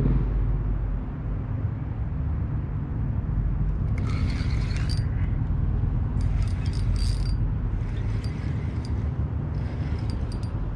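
Steady low hum of the bass boat's motor, with a spinning reel being cranked in four short spells from about four seconds in, a fine ticking whir each time.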